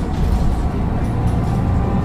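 Mercedes-Benz Citaro bus's Daimler OM906 six-cylinder diesel engine running under way: a deep steady drone with the thin, steady whine of the turbocharger above it.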